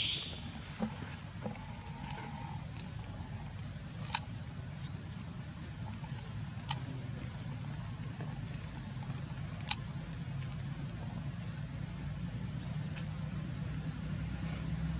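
Outdoor background sound: a steady low rumble under a continuous high-pitched insect drone, with a few sharp clicks about four, seven and ten seconds in.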